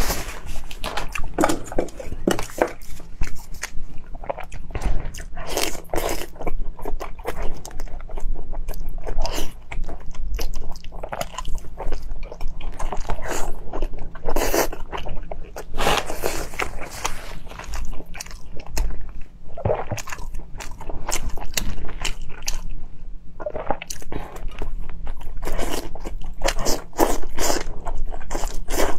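Close-miked eating: biting and chewing braised pork belly, a run of irregular clicks and short crunchy bursts throughout.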